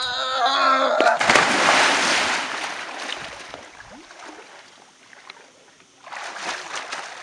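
A long yell, then a big splash about a second in as a person plunges into a swimming pool, the water churning and settling over the next two seconds. From about six seconds in, choppy splashing of swimming strokes.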